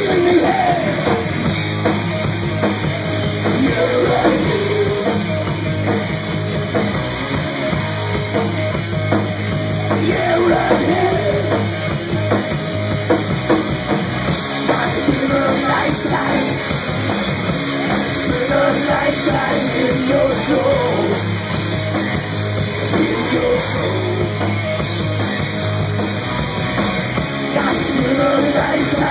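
Live rock band with electric guitars, bass and drum kit playing an instrumental passage between sung verses, with a wavering lead line over the rhythm.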